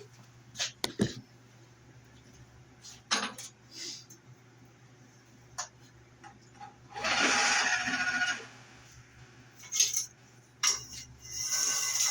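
Sharp metallic clicks and clinks of steel being handled, with a short hiss about seven seconds in, over a steady low machine hum.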